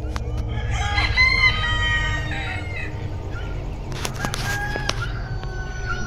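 A rooster crowing once, a long call that holds and then trails off, followed about four seconds in by a shorter call and a brief rustle.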